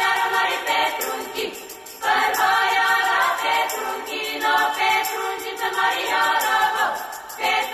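Background music: a choir singing held chords, changing every second or two.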